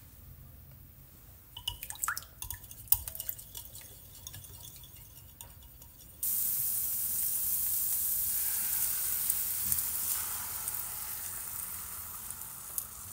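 A wire whisk clinks and taps against a glass bowl as eggs are beaten. About six seconds in, this gives way suddenly to a louder, steady sizzle of hot oil in a frying pan as the beaten eggs are poured over the fried courgette, easing off slowly toward the end.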